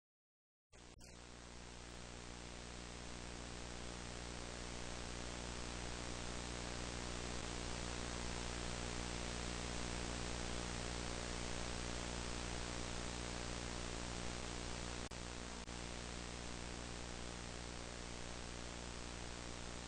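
Analog video static from a tape playing on a VCR-fed monitor: a steady hiss with a low buzzing hum beneath it. It cuts in with a click about a second in and slowly grows louder.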